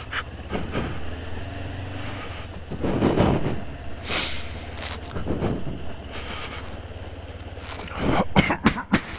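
Motorcycle engine idling steadily while a person coughs close to a bare helmet microphone, its dead cat windscreen lost. Several loud coughs and breaths stand out, the biggest about three seconds in, with a cluster of sharp knocks near the end.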